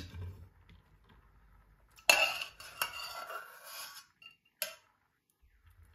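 Metal spatula scraping fried potatoes out of a stainless steel pot onto a wooden board: one scrape of about two seconds that starts suddenly, then a single short knock.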